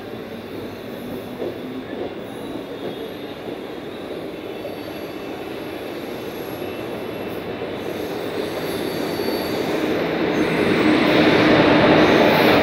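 Indian Railways WAP-4 electric locomotive and its coaches approaching and passing close by, the rumble of wheels on rail growing steadily louder over the second half and loudest as the locomotive goes past near the end.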